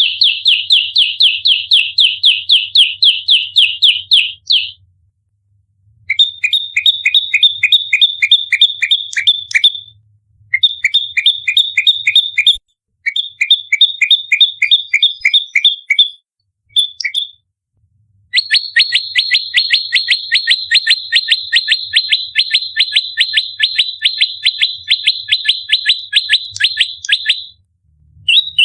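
Prenjak lumut songbird giving its rapid fighting call: long runs of sharp, quickly repeated chirps, about five or six a second, broken by several short pauses.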